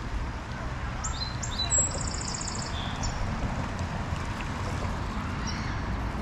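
A songbird singing a phrase of a few short high notes followed by a rapid trill, over a low steady rumble.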